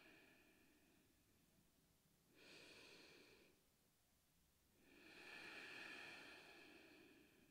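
Faint, slow breaths, in and out, from a person holding a standing forward fold: one breath trailing off at the start, a short one about two and a half seconds in, and a longer one about five seconds in.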